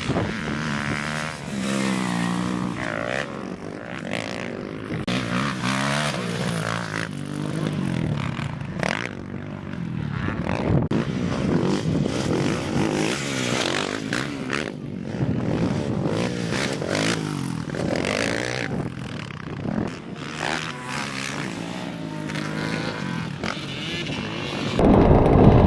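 Dirt bike engines revving, the pitch repeatedly rising and falling with the throttle as the bikes are ridden.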